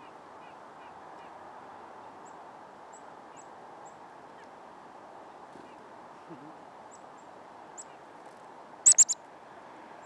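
Faint, short, high chip notes of black-capped chickadees at a hand feeder, scattered over a steady background noise. Three sharp, loud clicks in quick succession about nine seconds in.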